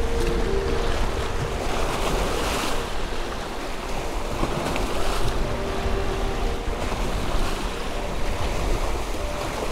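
Small waves washing and splashing against the rocks of a jetty, with wind buffeting the microphone.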